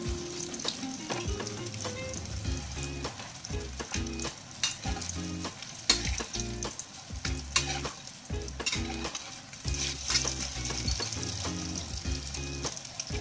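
Oil sizzling steadily in an aluminium wok as a chayote-and-egg omelette patty fries, with frequent clicks and scrapes of the spatula against the pan.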